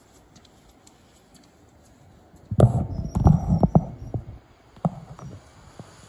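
Handling noise on a smartphone microphone as the phone with its clip-on telephoto lens is moved: a loud burst of low rumbling knocks and rubbing begins about two and a half seconds in and lasts a second and a half, followed by a few sharper clicks.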